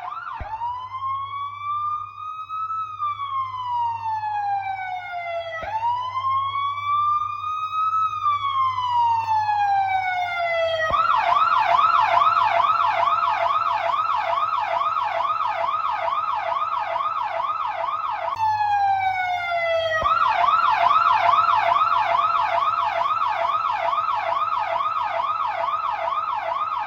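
Police car siren: a slow wail rising and falling twice, then switching to a fast yelp of about three pitch sweeps a second. Near the middle of the yelp it drops back into one falling wail before the yelp resumes, over a faint low steady hum.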